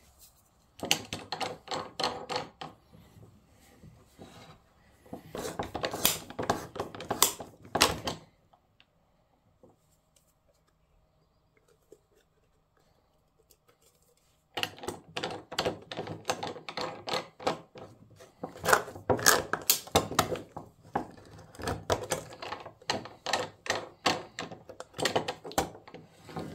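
An oil filter cutter working around the steel can of an ACDelco oil filter, making runs of rapid clicking and scraping as the filter is turned against the blade. There are two short runs in the first eight seconds, a pause of several seconds, then a longer run of cutting from about halfway through to the end.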